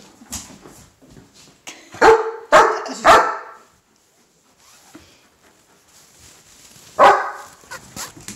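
German Shepherd barking: three barks in quick succession about two seconds in, then one more bark about seven seconds in.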